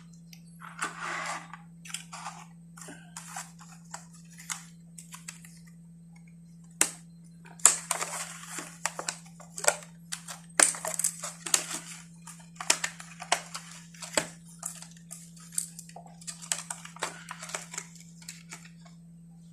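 Plastic packaging of a miniatures pack being opened and handled: scattered crinkling and sharp clicks, growing busy about a third of the way in and continuing as a rapid string of crackles and taps.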